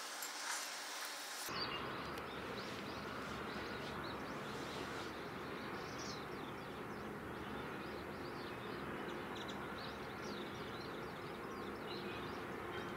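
Distant outdoor dockyard ambience: a steady low rumble with a faint steady hum and scattered small chirps. About a second and a half in, a thin hiss cuts abruptly to this fuller rumble.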